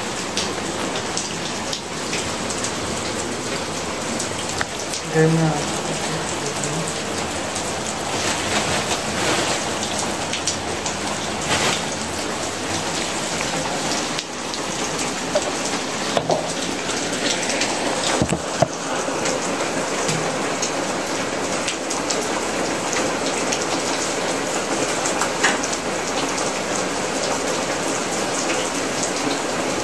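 Rain falling steadily, an even hiss with scattered drips and taps. About five seconds in, a brief voice sound rises over it.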